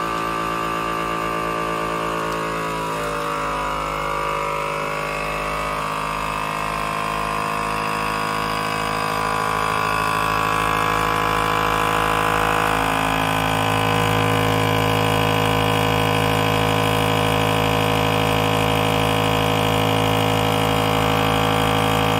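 A V840 countertop vacuum sealer's pump motor running steadily, drawing the air out of a bag of ground beef. Its pitch wavers a few seconds in, and its hum grows louder and deeper from about 13 seconds in.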